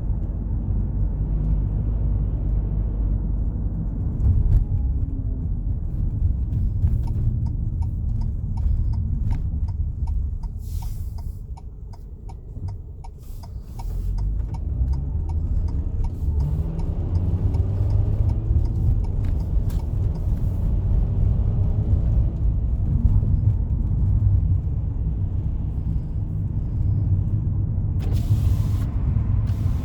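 Car cabin road noise while driving on a freeway: a steady low tyre and engine rumble. It eases briefly about halfway through, with a run of faint ticks just before, and a short hiss near the end.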